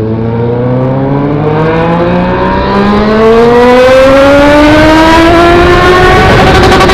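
Motorcycle engine accelerating hard, its pitch rising steadily for about six seconds through one gear.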